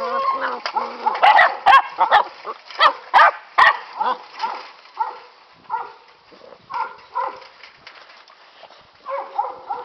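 Catahoula puppies yipping and whining in quick, overlapping short calls, densest in the first few seconds and more spaced out after, with a few sharp clicks among them.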